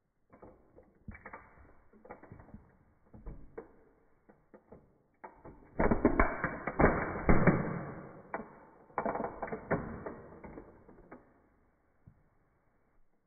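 Toy Porsche 911 Carrera model car creaking and cracking under a high-heeled shoe as it is crushed. Scattered clicks and creaks build to a dense run of loud cracking about six seconds in, with another burst about three seconds later, then die away as the roof gives way.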